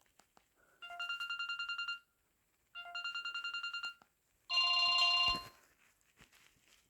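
Samsung GT-E1200 mobile phone playing a trilling electronic ringtone: two identical rapidly pulsing rings about a second long, then a louder ring at a different pitch about four and a half seconds in.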